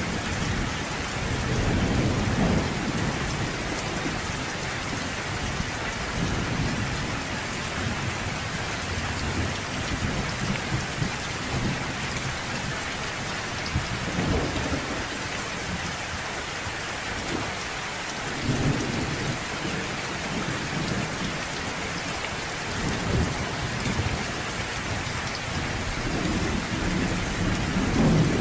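Thunderstorm: steady rain falling, with low thunder rumbling up several times, the last swell near the end.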